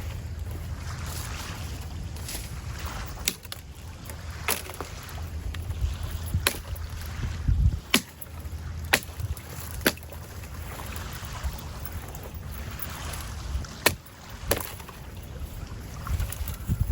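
Dead branches being snapped off a fallen tree by hand: about eight sharp cracks, spaced irregularly, between soft rustling, over a low wind rumble on the microphone.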